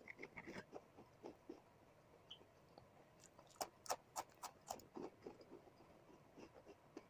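Faint eating sounds from a mouth close to the microphone: short crisp clicks and crunches as a small piece of food is bitten and chewed, busiest about three and a half to five seconds in.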